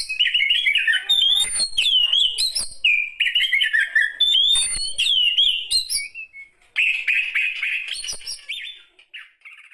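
Oriental magpie-robin (kacer) singing a varied run of whistled and chattering phrases, with a short pause partway and the song fading away near the end.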